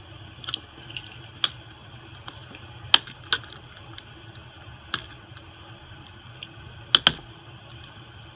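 Small sharp clicks and taps of repair tools against a phone's internals as an iPhone SE's logic board is pried and lifted out, scattered irregularly, with two close together near the end, over a steady low hum.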